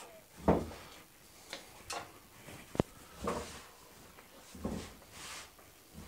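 Hands pulling and tying butcher's twine around a bacon-wrapped stuffed chicken roast: scattered soft thumps and light rustles of string and meat. One sharp click near the middle is the loudest sound.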